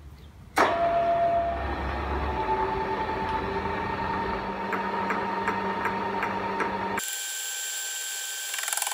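Vertical milling machine starting up about half a second in, its motor and spindle drive then running with a steady whine, ready to turn a boring head set up as a fly cutter. Near the end the sound suddenly loses its low end and turns thin and hissy.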